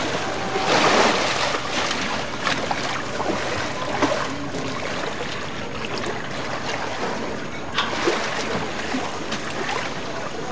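Rough sea, with waves surging and splashing and wind buffeting the microphone. A louder surge of water comes about a second in.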